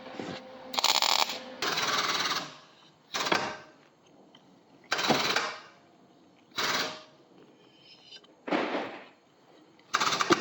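A power tool, used on a car's body and frame, run in about seven short bursts, each under a second long, with pauses of one to two seconds between them.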